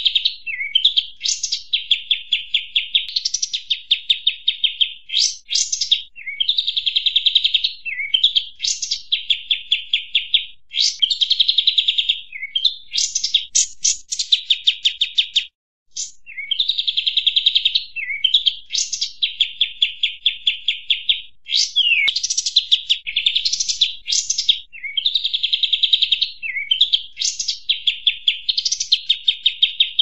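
Bird-lure recording of excited 'kapas tembak' bird calls: a busy, nonstop chatter of high-pitched chirps and rapid trills that repeats in a loop. The sound cuts out briefly about halfway through.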